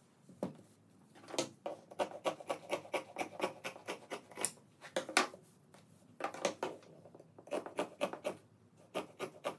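Dressmaking shears snipping through denim along a paper pattern: a rapid run of crisp cuts, with a short pause about midway.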